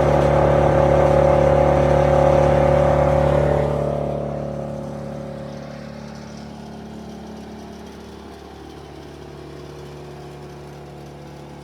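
Vermeer BC1000 wood chipper's 2.9-litre Deutz diesel engine running loud and steady. About four seconds in, the sound eases off over several seconds and settles to a quieter, steady run.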